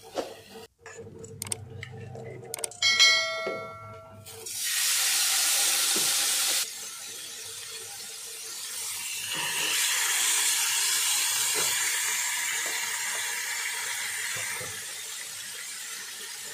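Whole tilapia frying in a hot greased pan: a few metal clicks and a short ringing clink, then loud sizzling as a fish goes into the fat, cutting off suddenly, and the sizzle swelling again from about nine seconds in as a second fish is laid in.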